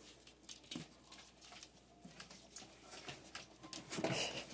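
Puppies scuffling about at play: many light, irregular clicks and taps of paws and claws, with a louder scuff about four seconds in.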